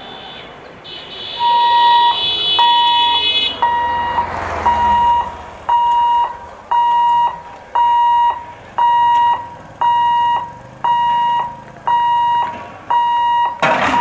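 Level-crossing warning alarm sounding a steady high beep about once a second while the boom barriers come down across the road, signalling that the gate is closing for an approaching train. A higher tone sounds over the first few beeps.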